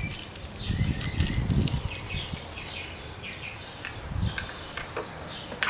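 Outdoor background of small birds chirping, with low rumbles of wind on the microphone. A few light clicks come near the end as a plastic holder is screwed onto the pressure washer.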